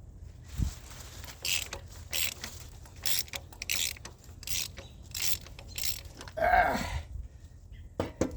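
Hand ratchet wrench worked in quick back-and-forth strokes: about seven short bursts of clicking a bit under a second apart, then a louder metallic scrape and clank near the end.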